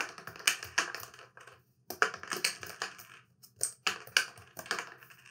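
Die-cut cardboard game tokens being punched out of their punchboard by hand: an irregular run of about a dozen sharp snaps, with a short pause about a third of the way in.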